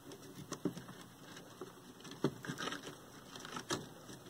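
Small clicks, taps and rustles of a circuit board, its metal bracket and wiring harness being handled and worked loose from a TV chassis, with two sharper knocks, a little past two seconds in and near the end.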